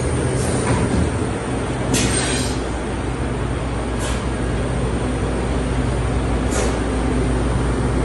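Extrusion blow moulding machine running with a steady hum, cut by four short hisses of compressed air, the one about two seconds in the longest.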